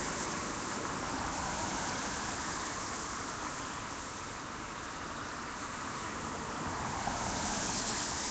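Street traffic on a wet road: a steady hiss of tyres that swells and fades, louder near the start and the end and dipping in the middle.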